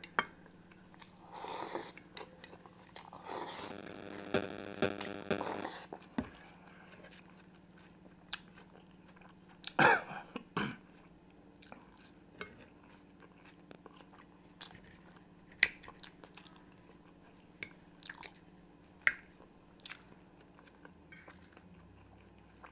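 Close-miked chewing and biting of fried potatoes, with wet mouth clicks and smacks and scattered sharp clicks, the loudest about ten seconds in.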